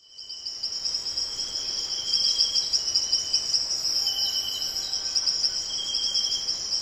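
Crickets chirping: a steady, pulsing high trill with a second, lower chirp that comes and goes, fading in over the first second or so.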